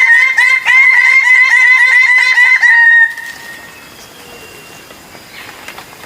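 Bird-of-paradise calling: a loud, fast run of repeated ringing notes that stops abruptly about three seconds in, leaving only faint background sound.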